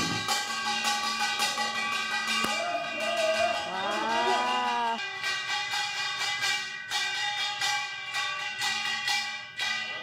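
Korean farmers' band (pungmul) accompaniment: small gongs clanging in a rapid, steady rhythm with a metallic ring. Between about three and a half and five seconds in, a long tone rises and falls over the clanging.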